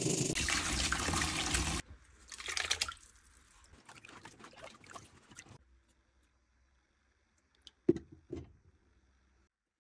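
A brass wire brush scrubs rust off a rusty steel hammer head with a dense scratching that stops suddenly about two seconds in. Then water sloshes and splashes as a hand stirs an electrolysis tub, and near the end come two sharp knocks, the first the loudest, as a wooden slat is set down across the tub's rim.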